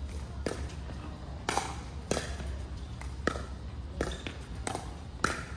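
Pickleball rally: a plastic ball struck by paddles and bouncing on the court, about seven sharp pocks in a few seconds at uneven spacing, each with a short ring. A steady low hum underneath.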